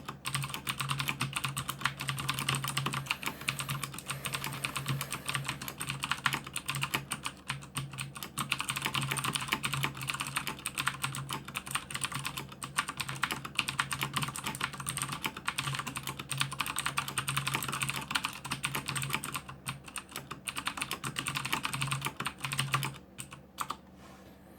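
Fast continuous typing on a mechanical keyboard with Cherry MX Blue switches: a dense stream of sharp clicky keystrokes, with a few short pauses, dying away near the end.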